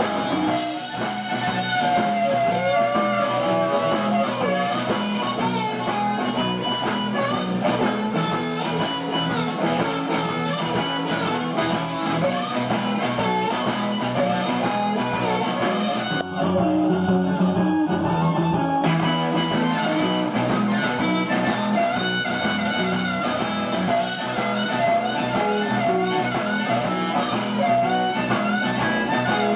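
Live electric blues band playing an instrumental passage: an electric guitar plays bending lead notes over drums and bass, with a harmonica joining in.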